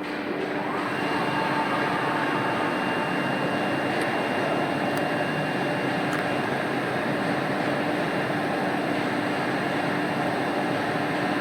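Steady machinery whir with a constant hum and a thin high whine, getting a little louder about a second in.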